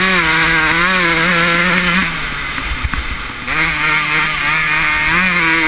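Kawasaki 125 two-stroke motocross bike engine heard from the bike itself, running hard at high revs with a wavering pitch. About two seconds in it backs off, with a thump near the middle, then picks up and pulls hard again.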